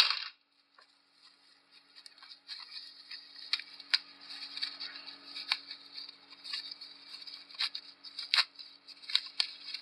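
Plastic bag and foam packaging crinkling and rustling in the hands, with irregular crackles and sharp crinkly clicks. A loud, brief handling noise comes at the very start, then a short pause before the rustling begins.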